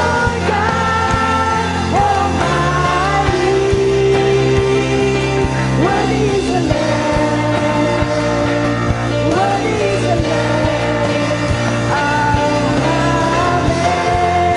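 Worship song with singing over a band, with steady bass notes and drum hits.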